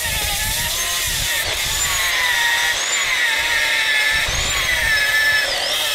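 Electric angle grinder with a sanding disc grinding the epoxy patches on a fiberglass boat transom. Its motor whine rises and falls in pitch every second or so over a steady grinding noise.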